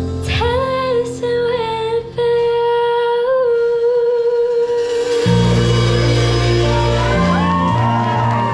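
A live band's song coming to its end: a female singer holds one long note with slight wavers over sustained keyboard and violin, then deep bass notes come in under a final chord about five seconds in.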